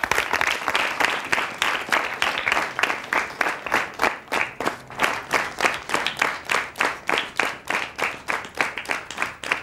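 Studio audience applauding with dense clapping that starts abruptly and stops just after the end, eased off slightly in the last seconds.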